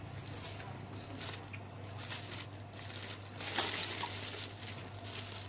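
Eating sounds: a metal spoon scooping and scraping rice in a ceramic bowl, with scattered small clicks and one louder scrape a little past halfway, over a steady low hum.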